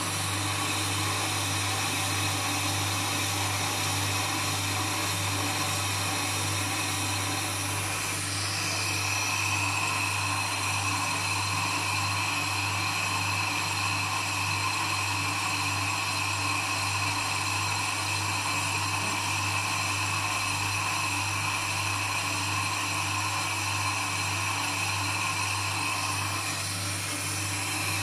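FDT6000 brake disc lathe running, turning a brake disc while its cutting tool skims the disc face, with a steady low hum from the machine throughout. A higher cutting whine grows stronger about a third of the way through and eases off near the end.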